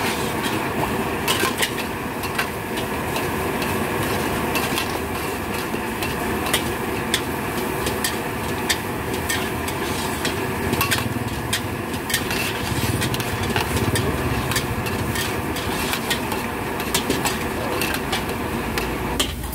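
Metal spatula stirring in a steel wok of simmering sauce, clacking and scraping against the pan again and again at an irregular pace, over a steady sizzle and the rush of the gas burner.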